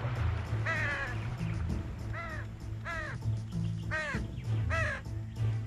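Crow cawing, about five falling caws roughly a second apart, over low background music.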